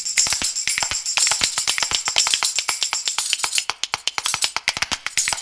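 Background music with a fast, steady percussion beat.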